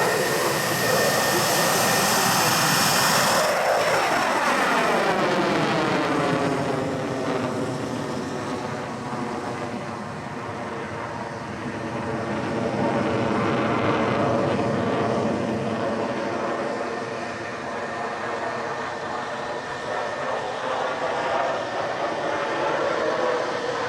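F-16 Fighting Falcon jet engine during a display pass: a loud hissing rush for the first few seconds as it goes by close, then a sweeping, changing-pitch sound as it moves away. It fades and swells again twice as the aircraft turns.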